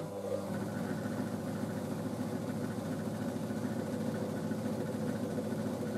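Vintage Zyto mini lathe running, its motor and belt-driven spindle spinning the chuck with a steady hum.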